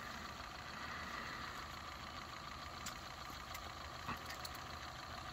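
A steady, engine-like hum, with a few faint clicks about three and four seconds in.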